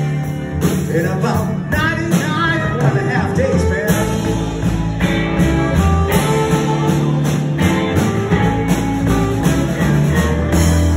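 Live band playing a slow blues on electric guitar, bass guitar, drums and saxophone, with a bending lead line over steady bass notes.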